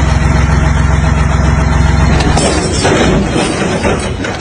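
An engine running steadily stops about halfway through, and a burst of clattering, crashing noise with several sharp impacts follows.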